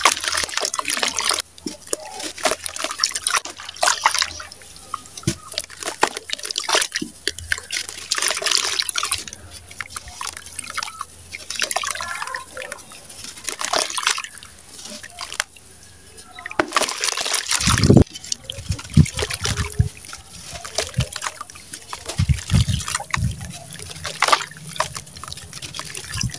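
Wet sand-cement chunks crumbled and squeezed by hand over a basin of water, the grit crunching and pattering into the water with trickles and splashes. There are a few heavier plops about two-thirds of the way in.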